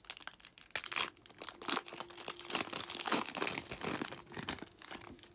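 Foil wrapper of a Topps 2020 Series 1 baseball card pack being torn open and crinkled as the cards are pulled out: a rapid, irregular crackling.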